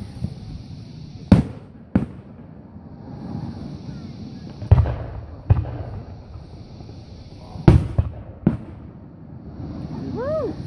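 Aerial fireworks shells bursting overhead: about seven sharp booms at irregular gaps of one to three seconds, with a low rumble between them.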